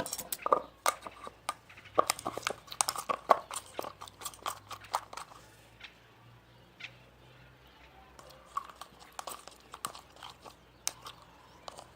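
Sticky, not-yet-activated glue slime being worked and stirred: a quick run of wet clicks and smacks that thins out about halfway through. The stickiness shows that the slime has not yet been activated.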